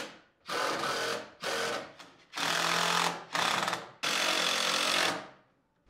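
Cordless drill/driver driving screws through an aluminum flat bar into 2x4 wood blocking, in five short runs with brief pauses between, the last one the longest.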